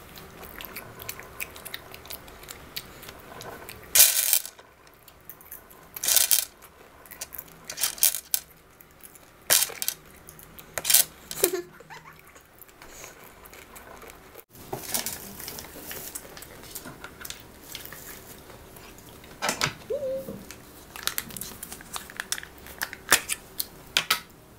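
Chocolate wrappers being handled and unwrapped while chocolates are eaten: irregular crinkles and sharp clicks, spaced a second or more apart, with an occasional tap on a hard surface.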